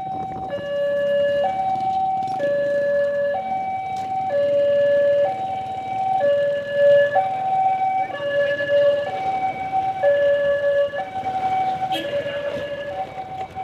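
A loud two-tone siren, alternating steadily between a higher and a lower note held about a second each, over the low running of a motorcycle engine.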